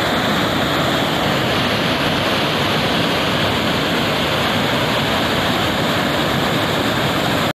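Muddy floodwater rushing across a hill road, a loud, steady rush with no let-up.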